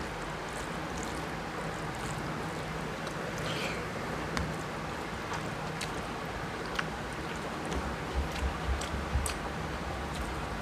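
Eating rice and curry by hand: fingers squishing and mixing rice on a plate, with many small wet clicks and a few low thumps near the end, over a steady hiss.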